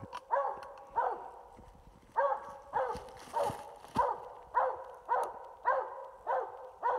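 Coon dog barking treed at a raccoon up the tree: a run of short barks of the same pitch, about one every half second, with a brief pause about a second in.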